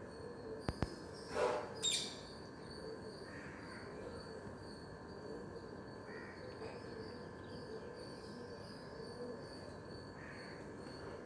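Crows cawing: two harsh caws close together about a second and a half in, then a few fainter calls spread out, over a steady faint background hum.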